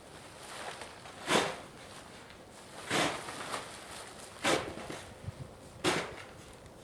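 Snow shovel digging into snow in four strokes, about one every second and a half, with lighter scrapes in between.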